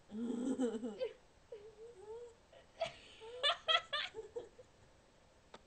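Young women laughing in short outbursts, with a run of rapid, high-pitched laughs around three and a half seconds in.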